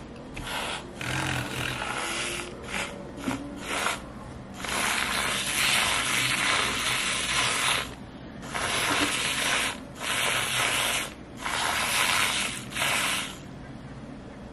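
Handheld battery milk frother whirring with its coil whisk in almond milk in a glass mug, whipping it to foam. It runs in several stretches with short breaks as the whisk moves through the milk, then stops near the end.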